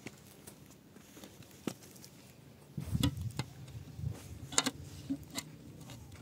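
Scattered scrapes, knocks and clinks of soil and stones being moved by hand in a shallow hole in stony ground, with a few heavier thuds about three seconds in and a sharp clink about four and a half seconds in.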